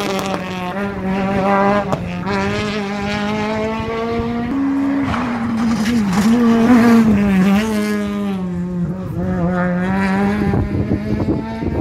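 Rally car engines at high revs, one car following another along the stage. Each engine note rises in pitch, breaks briefly at a gear change and climbs again, several times over.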